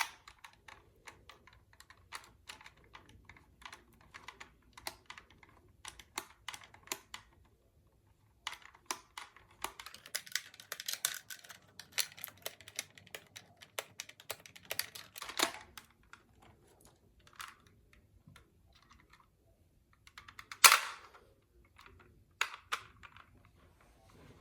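Small, irregular clicks and taps of a plastic toy figure and small hardware being handled, with a dense flurry of them from about eight to fifteen seconds in and one louder clack near the twenty-first second.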